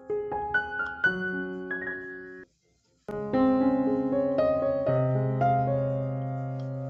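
Background piano music. It breaks off for about half a second a little before the middle, then resumes with held chords.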